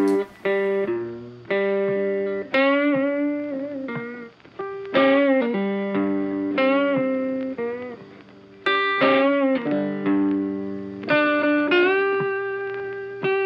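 Outro music: a guitar picking a slow melody, each note ringing out and fading, some notes bent in pitch.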